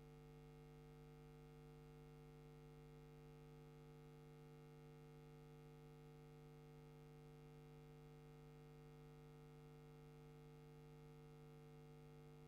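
Near silence: a faint, steady electrical hum on an idle microphone feed, unchanging throughout.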